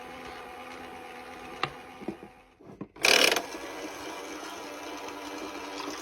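Washing machine running with a steady mechanical hum. There is a click a little over a second and a half in, and a short, loud noisy burst about 3 seconds in.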